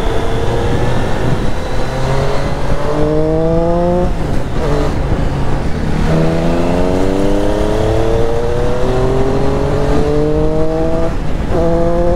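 Triumph Street Triple 765's three-cylinder engine accelerating hard through the gears. Its pitch rises steadily, dips at gear changes about four seconds in and again near the end, then climbs again, over constant wind rush.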